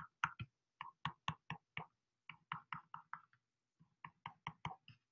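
Faint quick clicks, about four or five a second in short runs with a brief pause, as tick marks are drawn one by one along graph axes with a digital pen tool.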